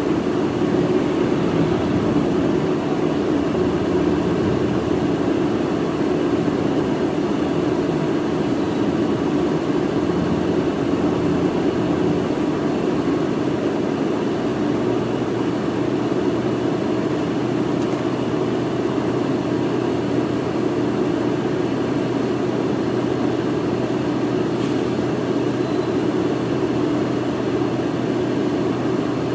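Inside a city bus: the diesel engine and road noise running steadily, with a steady low hum coming in about halfway through.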